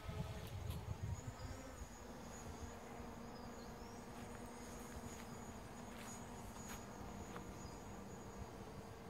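DJI Mavic Pro quadcopter flying overhead, its propellers a faint, steady buzz. A low rumble on the microphone in the first two seconds.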